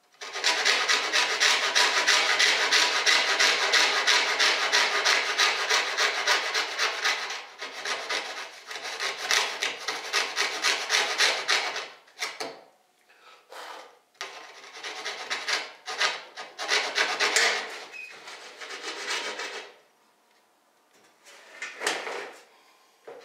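Coping saw with a thin, fine blade cutting the cope along the profile of primed MDF base trim, in fast rasping strokes. It saws steadily for about seven seconds, then in shorter runs with pauses, going quiet for a couple of seconds before a brief last run near the end.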